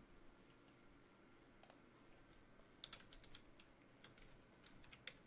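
Near silence: faint room tone with a few scattered soft clicks, in small clusters through the middle and near the end.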